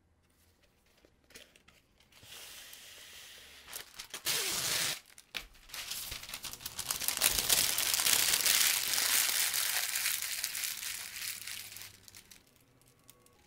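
Cooking paper being pulled off its roll and torn, with a short loud rip about four seconds in, then a long stretch of dense crinkling as the sheet is crumpled into a ball by hand, dying away near the end.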